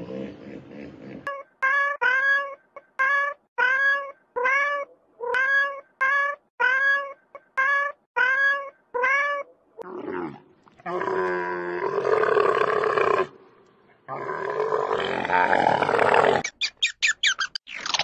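A hippopotamus calling: a low grunt, then a run of about a dozen short honks, nearly two a second. From about ten seconds in, camels bellow in two long, loud calls, and near the end a red squirrel gives a quick run of clicking chatter.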